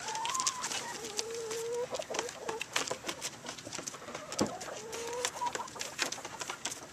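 A flock of chickens clucking, with several drawn-out, slightly wavering calls about a second long, over a constant patter of quick taps and clicks.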